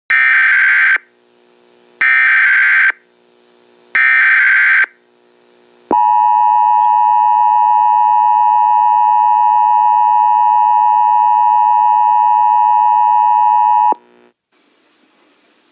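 Emergency Alert System broadcast: three one-second blasts of digital SAME header data, a second apart, then the steady attention tone for about eight seconds, cut off suddenly. This signals the start of an emergency alert.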